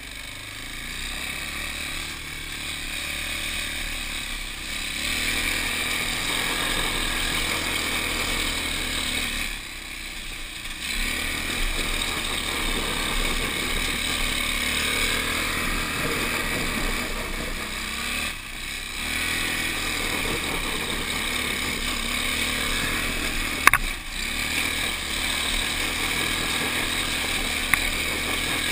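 Hammerhead 250cc go-kart engine running hard while the kart drifts on gravel. The engine eases off briefly twice, about a third of the way in and again past the middle, with a sharp knock later on.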